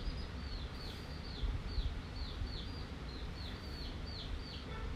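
Small bird chirping over and over, each chirp short and falling in pitch, about three a second, over a steady low rumble.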